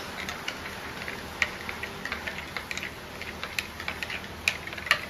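A spoon stirring coffee in a cup, making quick irregular light clinks and taps, with a few sharper knocks against the cup about a second and a half in and near the end.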